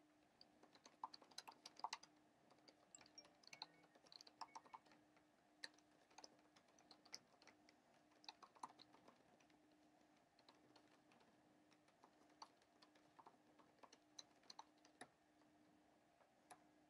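Faint, irregular clicking in short quick runs over a faint steady low hum.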